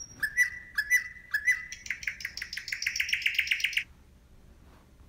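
A small songbird singing: a few short whistled chirps, then a fast, even trill of about eight notes a second that stops abruptly near four seconds in.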